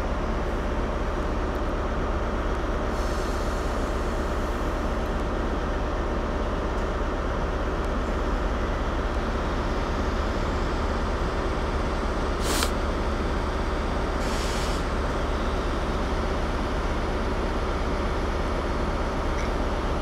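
Class 150 Sprinter diesel multiple unit pulling out, its underfloor diesel engines giving a steady running hum as it draws away. A brief sharp hiss sounds about twelve seconds in.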